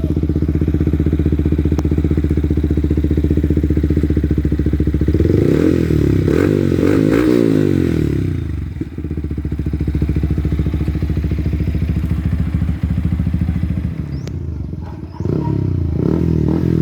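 Yamaha R15 V3's single-cylinder engine running through an Akrapovic slip-on exhaust: it idles steadily, is revved up and down a few times about five seconds in, settles back to idle, and is revved again near the end.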